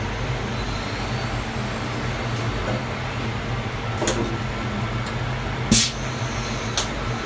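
Walter Woodtronic CNC5 circular saw blade grinding machine running with a steady hum, broken by three sharp mechanical clicks, the loudest about six seconds in.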